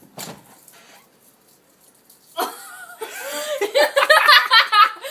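High-pitched laughter that starts about halfway through and builds into a run of quick giggles near the end.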